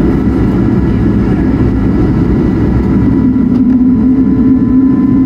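Airbus A220-100's Pratt & Whitney PW1500G geared turbofan engines running at taxi power, a steady low rumble heard inside the cabin, with a humming tone that grows stronger near the end.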